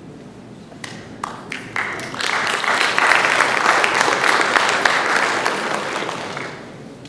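Audience applauding: a few scattered claps about a second in, swelling into steady applause that dies away near the end.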